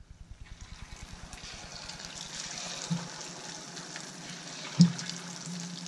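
Battered squid rings sizzling as they are dropped into hot oil in a saucepan. It is a steady hiss that builds over the first second or two. There is a light knock about three seconds in and a sharper, louder knock near the end.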